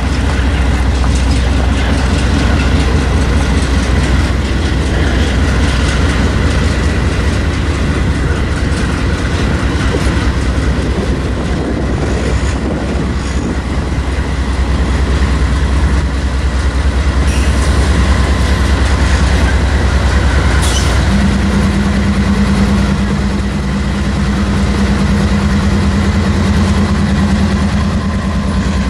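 Freight train led by several diesel-electric locomotives approaching and passing close by: a loud, steady diesel engine rumble mixed with wheel and rail noise. A steady low hum joins in about two-thirds of the way through as the locomotives come alongside.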